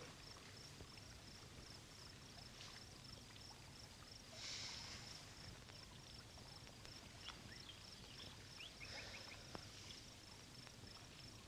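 Near silence, with faint crickets chirping in a steady, even rhythm.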